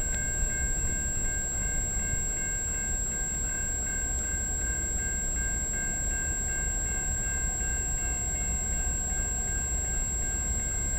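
CN freight train's diesel locomotives approaching in the distance, a steady low rumble. A steady high ringing with a faint regular beat runs over it.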